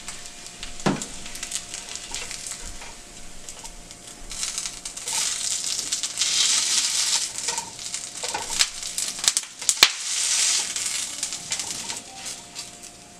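Hot oil sizzling in a square nonstick frying pan as fried hash browns are lifted out with a nylon slotted spatula, with scrapes and taps of the spatula on the pan. The sizzle swells louder twice, about five and ten seconds in.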